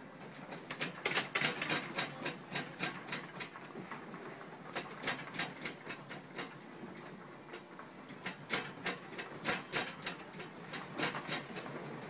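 Objects in a room rattling and clattering as the building shakes in an earthquake: rapid, irregular clicks and knocks that come in spells, easing briefly about four and seven seconds in.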